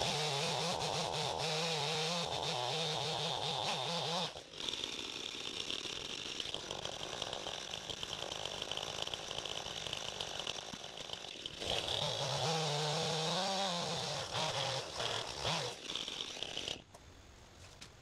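Gasoline chainsaw cutting through a fallen tree trunk, the engine running hard under load in two long stretches with somewhat quieter running between them. The sound drops away sharply about a second before the end.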